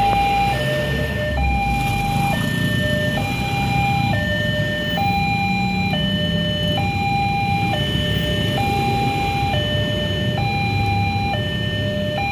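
Railway level crossing's electronic warning alarm sounding while the barriers are down: a two-tone pattern switching between a higher and a lower pitch about once a second. The low hum of queued traffic runs underneath.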